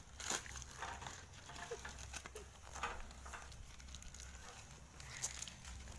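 Quiet handling of a snack packet: scattered light crinkles, rustles and taps of plastic packaging being worked open by hand.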